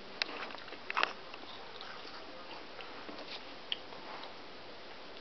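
Someone chewing crunchy food close to the microphone: scattered crisp crunches and clicks, the loudest about a second in.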